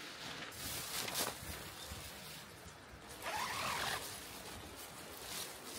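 Thin tent fabric of a Gossamer Gear The Two crinkling and rustling as it is shaken out and handled, in several bursts, the longest about three seconds in.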